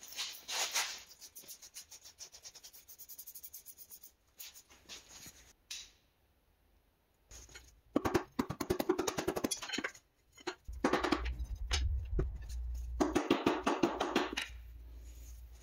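Hand work on a motorcycle front tire: runs of rapid clicking, scraping and knocks, with a low rumble and clatter in the second half.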